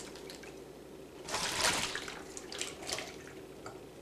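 Red water draining through a tornado-in-a-tube between two water bottles, bubbling as air pushes up through a layer of lamp oil. The bubbling is louder for a moment about a second and a half in.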